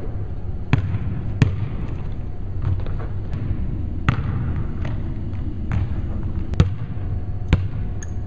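Basketball bouncing on a hardwood gym floor: about seven sharp bounces at uneven intervals, over a steady low background rumble.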